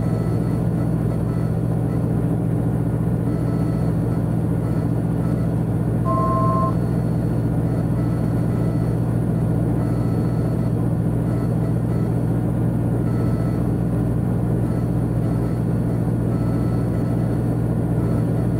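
Cessna P210's turbocharged six-cylinder engine and propeller droning steadily in the cockpit, with one short two-tone electronic beep about six seconds in.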